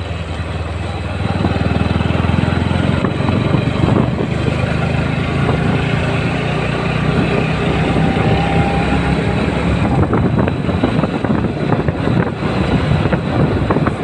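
Motorcycle engine running under way, pulling steadily along the road, with wind noise on the microphone; the engine gets louder about a second in as the bike picks up speed.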